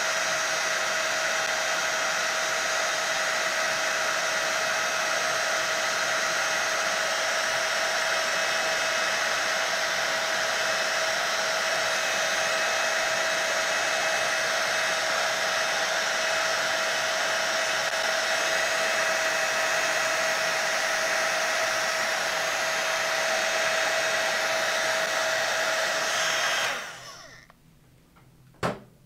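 Heat embossing tool blowing hot air steadily, with a constant whine over the fan hiss, as it melts black embossing powder. It is switched off about 27 seconds in and quickly dies away, and a single short knock follows.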